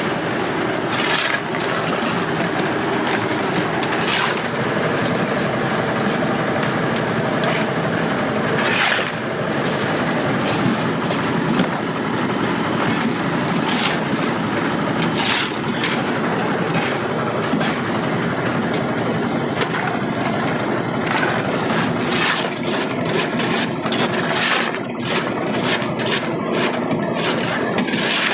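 An engine running steadily under scattered knocks, cracks and scraping, with a rapid run of clicks from about seventeen seconds in.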